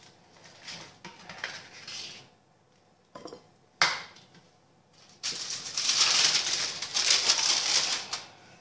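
Serving spoon scraping and clinking against a dish as food is scooped out, with a single sharp knock a little before halfway and a longer, louder run of scraping in the second half.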